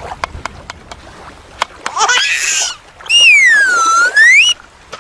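A few light clicks, then a short hissing burst about two seconds in. Next comes a loud whistle that dips in pitch and rises again over about a second and a half.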